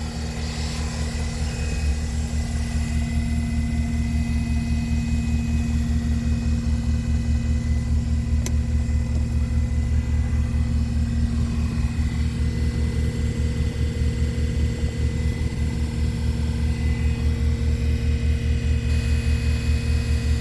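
Diesel engine of a 2015 Caterpillar 236D skid steer loader running steadily, with an even low throb and hum; it gets a little louder about two seconds in.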